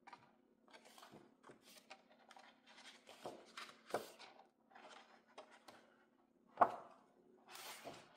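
Cardstock pages of a flashcard packet being handled and turned on a wooden table: a string of short rustles and light taps, one sharper snap about two-thirds through and a longer rustle near the end as the last page goes over. A faint steady hum lies underneath.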